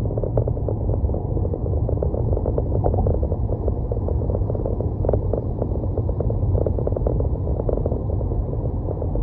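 A car being driven: steady low road and tyre noise with many small ticks and rattles scattered through it.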